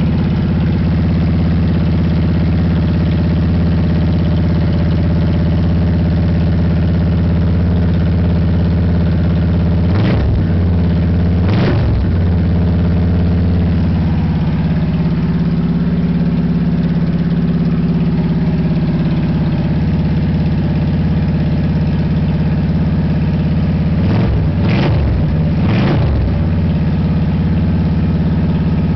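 Motorcycle V-twin engine running through a Cobra Lo-Boy Shotgun exhaust, idling steadily. It gets two quick throttle blips about ten seconds in and three more quick blips near twenty-five seconds, each rising and dropping straight back to idle.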